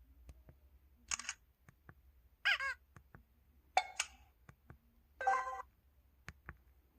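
LG-KH8000 mobile phone's camera shutter sound effects, four different short shutter tones played one after another, some with a quick pitched chirp. Faint clicks fall between them.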